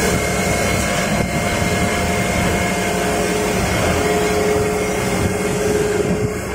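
Colloid-mill nut-butter grinder running steadily while grinding and discharging paste: an even, loud mechanical drone with a constant whine over it.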